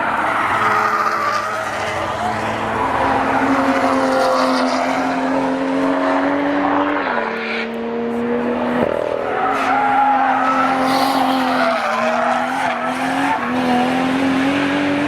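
Toyota Supra's 2JZ straight-six engine held at high revs for long stretches, its pitch dropping briefly about halfway through and again near the end, with tires squealing under it as in a drift or burnout. A sharp knock sounds about nine seconds in.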